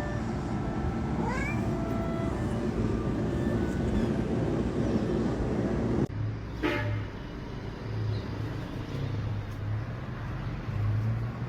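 A cat meowing, with a short rising call about a second in and another near the middle, over a steady rumble of road traffic.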